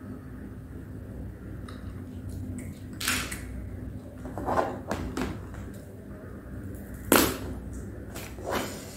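Close-miked eating sounds as a cooked crab's shell is handled: several short crackles and crunches, the sharpest about seven seconds in, over a steady low hum.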